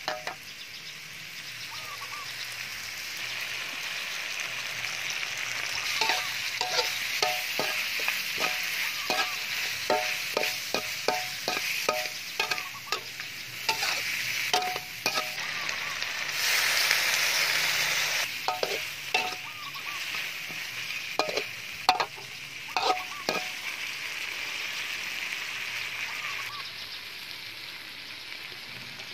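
Chicken and ginger sizzling in a metal wok while a metal spatula stirs and scrapes, clinking against the pan with a short ring on many strokes. The sizzle swells for a second or two a little past the middle.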